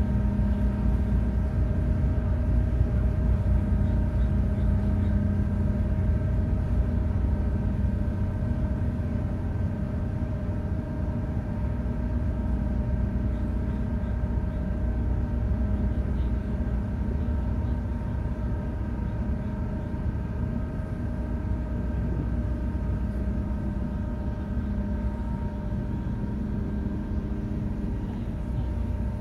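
Ferry's engines running steadily while the vessel is underway: a low rumble under a constant droning hum, easing off slightly in the second half.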